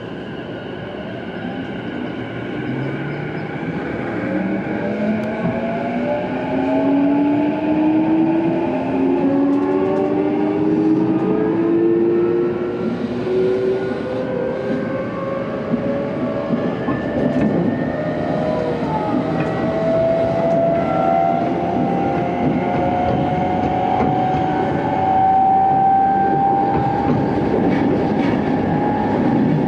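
Traction motors and Mitsubishi IGBT VVVF inverter of a JR East E233 series 2000-subseries motor car whining as the train accelerates, the whine rising steadily in pitch, heard from inside the car. This set's motor sound is known to be louder than that of the others in its class.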